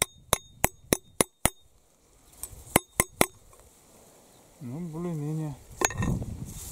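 Hatchet used as a hammer, tapping metal on metal to straighten a bent nail: quick ringing taps about three a second, a pause after about a second and a half, then four more taps. A man's voice hums briefly near the end.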